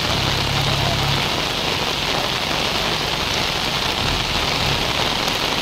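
Heavy rain falling steadily: a dense, even hiss of rain on the ground and vegetation. A low hum sits underneath in the first second and returns briefly about four seconds in.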